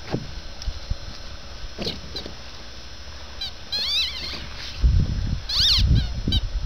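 Squeaker in a rubber chicken dog toy squawking as a dog bites and chews it. A wavering, high-pitched squeal comes about three and a half seconds in, and a shorter, louder one comes near the end. Low rumbling thuds run through the second half.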